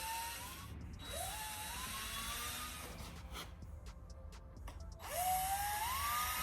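Power drill boring holes through a carbon fiber panel, the motor whining up in pitch with each trigger pull, about a second in and again about five seconds in, with a few sharp clicks in the pause between.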